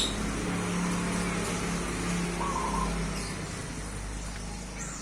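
Low steady hum of a vehicle engine, with one short bird note about two and a half seconds in.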